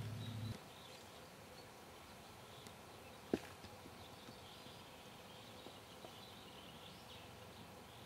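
Faint outdoor background with scattered distant bird chirps. A low droning hum cuts off abruptly about half a second in, and a single sharp click comes a little after three seconds in.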